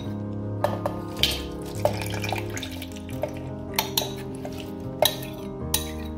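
Several sharp clinks of a utensil against a steel mixer-grinder jar as chunks of watermelon are tipped and pushed in from a bowl, over background music with held notes.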